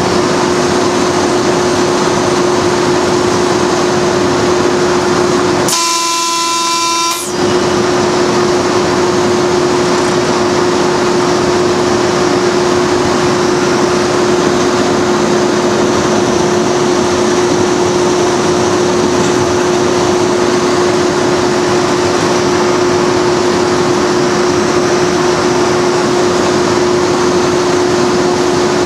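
Class 37 diesel-electric locomotive 37905 (Ruston engine) running along the line, heard from the cab as a steady rumble and hiss with a constant hum. About six seconds in, the locomotive's horn sounds once for about a second and a half.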